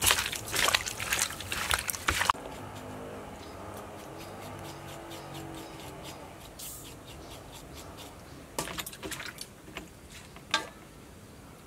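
Hands squelching and rubbing salted raw chicken gizzards in a metal bowl, loud and busy for about two seconds, then cut off. After that, quieter scraping of a kitchen knife trimming a gizzard, with a few scrapes and a sharp click near the end.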